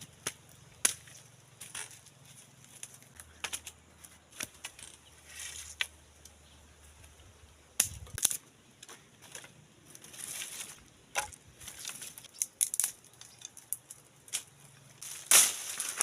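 Dry sticks and leaves being handled, with rustling and scattered sharp snaps and cracks. The loudest snaps come about halfway through and near the end.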